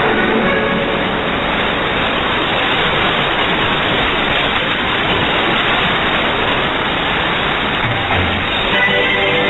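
Shortwave radio hiss and static on 5836 kHz, with a pirate station's music faded down almost into the noise as the signal weakens. The music comes back up near the end.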